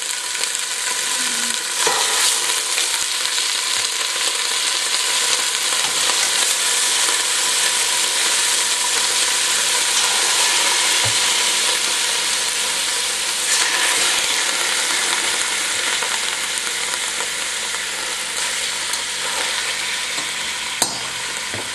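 Marinated chicken drumsticks with onions and garlic frying in hot oil in a stainless steel pot: a steady sizzle with a few sharp clicks, the loudest near the end.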